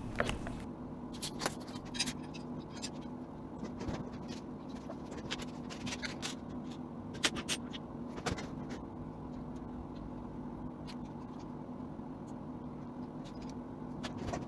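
Scattered light clicks and rattles of plastic drag-chain links and small hardware being handled during assembly, over a steady low hum.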